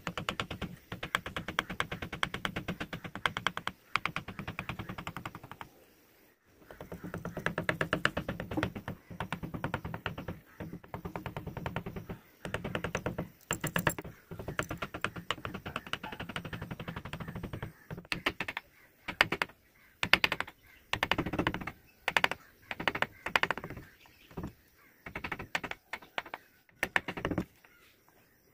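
Hand-pushed carving chisel paring wood, a dense run of fine rapid ticks and scraping as the blade shaves along the grain. The strokes run long through the first half with a brief pause, then come as shorter separate cuts with gaps toward the end.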